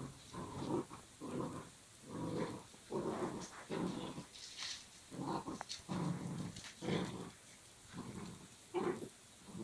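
Dogs growling in play during a rope tug-of-war between a Belgian Malinois puppy and a larger shepherd dog: a run of short growls, about one or two a second.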